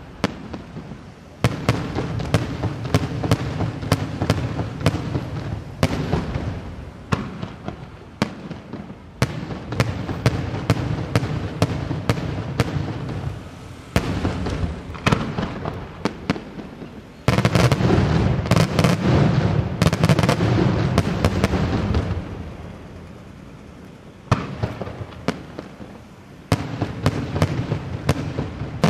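Daytime aerial fireworks display: shells bursting in rapid volleys of sharp bangs, with a low rumble between them. A denser, louder barrage comes a little past halfway, then a short lull before the bangs resume near the end.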